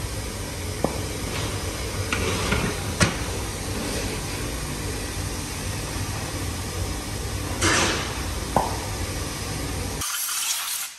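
Bench work on a bare aluminium cylinder head: a few sharp metal clinks and knocks, and short hisses of air around two seconds in and again near eight seconds, over a steady low workshop hum.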